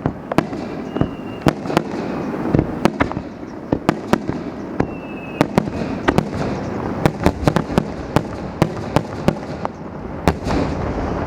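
Fireworks finale barrage: aerial shells bursting in quick succession, several sharp bangs a second over a continuous rumble, with a short whistle twice.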